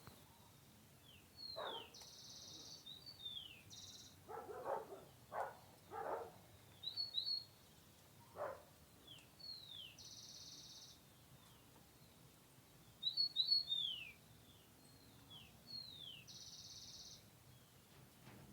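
Wild birds calling: repeated short whistled notes that fall in pitch, a few quick chirps, and three brief high buzzy trills spread through, with a few short lower calls in between.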